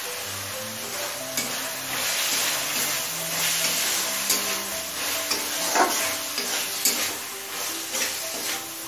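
Chopped capsicum sizzling in a pan with spiced chicken masala as it is stir-fried, the spoon scraping the pan several times. Soft background music under it.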